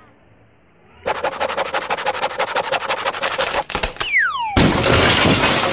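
Cartoon sound effects: after a second of quiet, a fast rattle of clicks, about ten a second, then a short falling whistle about four seconds in and a burst of hiss near the end.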